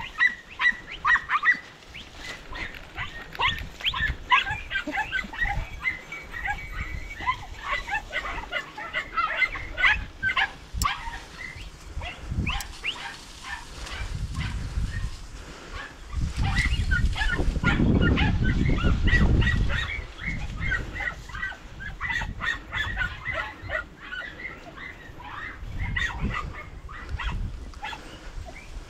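A pack of podenco hounds yelping and barking over and over in a thick reed bed, giving tongue as they work rabbit scent. A few seconds of low rumbling noise come in around the middle.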